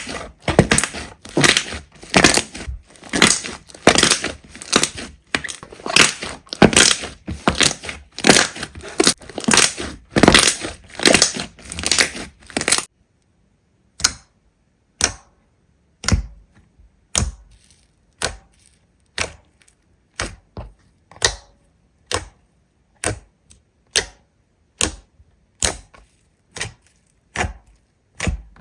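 Slime being handled, with close, crisp crunching and crackling in quick succession, then a cut to separate squishy pops or clicks about once a second.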